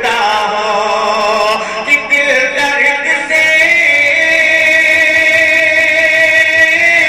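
A man singing a devotional Urdu kalam (naat) into a microphone, drawing out an ornamented, wavering phrase, then holding one long note from about three seconds in.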